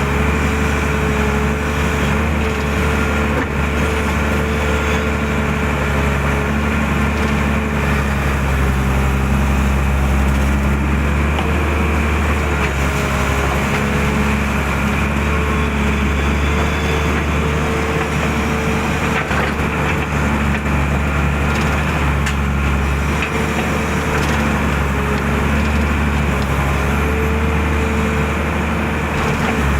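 Excavator's diesel engine running steadily under working load, with a tone above the engine hum that wavers up and down as the machine works. A few faint knocks and scrapes.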